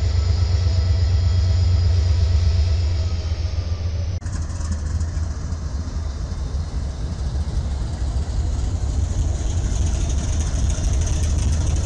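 A Norfolk Southern diesel locomotive running past with a deep, steady engine throb. About four seconds in it cuts suddenly to a CSX diesel locomotive passing, its engine rumble joined by rail and wheel noise that grows louder toward the end.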